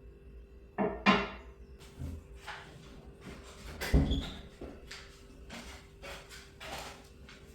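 A series of knocks and clatters, like things being handled and set down, loudest about a second in and again about four seconds in.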